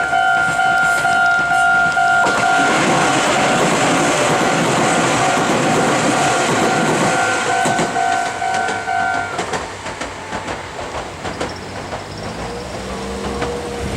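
Japanese level-crossing warning bell ringing in rapid pulses while a Meitetsu 5300 series electric train runs through, its wheels clacking over the rail joints. The bell stops about nine seconds in as the train clears, and the train noise then fades away.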